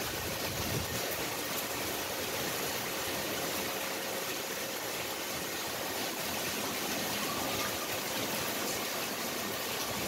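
Steady rain falling and splashing on a wet tiled courtyard, an even hiss of water.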